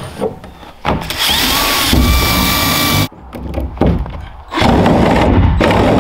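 Cordless reciprocating saw cutting through the plastic wall of an IBC tote. It runs for about two seconds, stops suddenly, gives a short burst, then runs steadily again from about halfway through.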